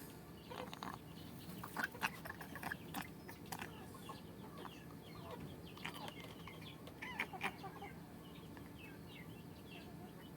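Chickens clucking softly, with several sharp clicks or taps among the calls. The loudest clicks come about two seconds in and again a few seconds later.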